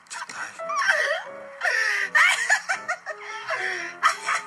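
Voices laughing and exclaiming in short, broken-up sounds, with music underneath.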